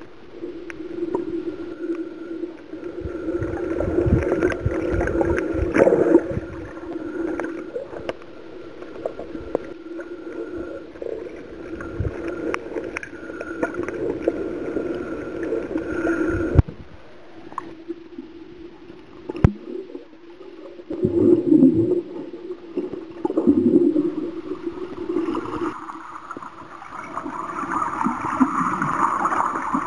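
Underwater sound picked up by a submerged camera: water gurgling and sloshing over a steady drone, with irregular surges and knocks.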